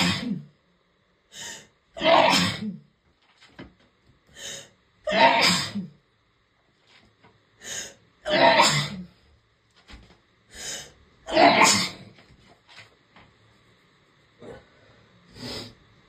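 A woman sneezing hard again and again: five loud sneezes about three seconds apart, each led by a shorter, quieter sound.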